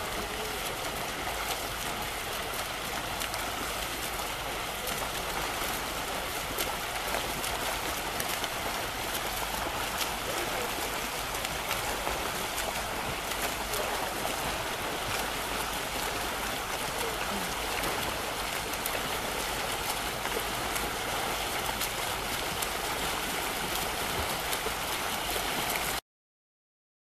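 Steady splashing and churning water from a group of triathletes swimming front crawl in open water. The sound cuts off suddenly near the end.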